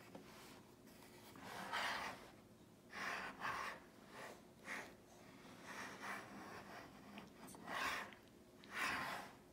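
Short breathy puffs and snorts of breath through the nose, about six of them, a second or so apart.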